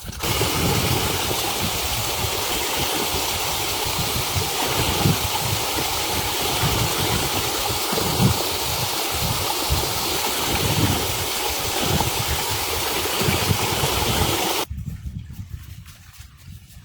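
Strong blizzard wind rushing and buffeting the microphone with gusty low rumbles. It cuts off suddenly near the end.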